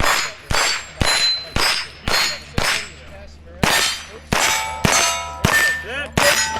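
Rimfire rifle fired rapidly at steel plates, each shot followed by the ringing clang of a hit plate. About eleven shots, roughly two a second, with a short pause after the sixth.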